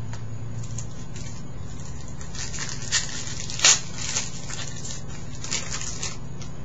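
Trading cards and pack wrapper being handled: two spells of crinkly rustling, with one sharp snap in the middle of the first.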